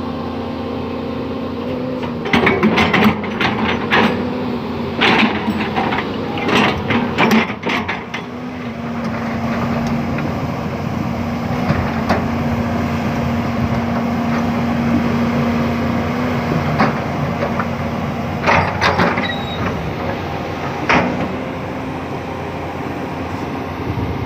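Excavator engine running steadily, with two spells of sharp metallic knocks and clanks: the first a few seconds in, the second near the end.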